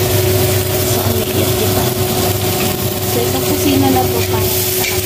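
A steady, continuous machine hum with a constant tone, from a motor or fan running without letting up.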